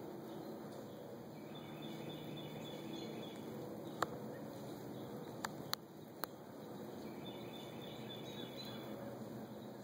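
Steady outdoor background hiss with a faint, high bird call twice. Near the middle there are four sharp clicks: one on its own, then three close together about a second and a half later.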